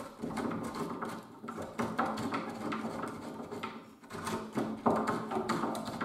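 Small wood chisel, worked by hand, scraping and paring waste out of the corners of a drilled latch hole in a door edge: a quick, irregular string of short scrapes and light knocks.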